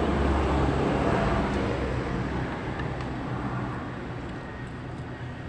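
Motor vehicle noise, a steady low rumble with a wash of noise that is loudest at the start and slowly fades.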